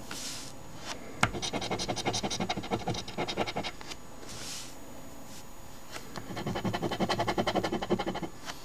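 A coin scratching the coating off an instant lottery scratch ticket in two runs of rapid strokes, the second starting about six seconds in.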